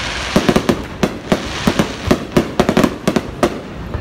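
Aerial fireworks bursting: a rapid, irregular run of sharp bangs and cracks, several a second, over a steady noisy background.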